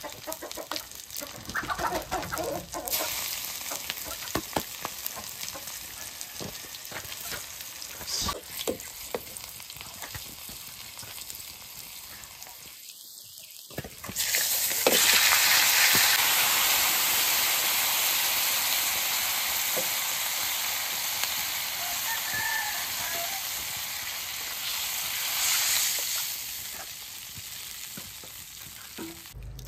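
Food frying in hot oil in a pan, with a utensil knocking against it now and then. About 14 seconds in, a much louder sizzle starts suddenly and then slowly dies down.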